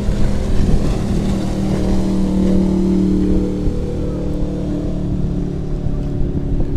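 Boat engine running steadily, with wind and water noise over it.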